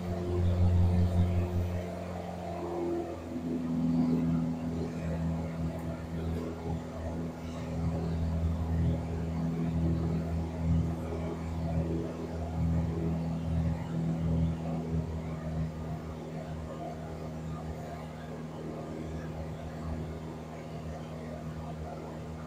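Piper PA-28-160 Warrior's four-cylinder piston engine and propeller droning steadily in cruise, heard from inside the cabin. The engine note changes about three seconds in, then holds steady.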